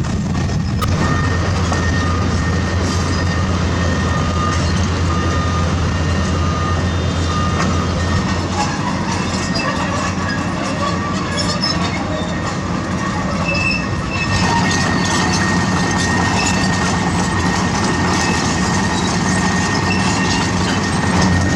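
Komatsu PC200 crawler excavators travelling on their steel tracks: a steady low diesel drone under continuous clanking of the track links, with thin high squeaks from the tracks coming and going. The engine drone dips for a few seconds in the middle and picks up again about 14 seconds in.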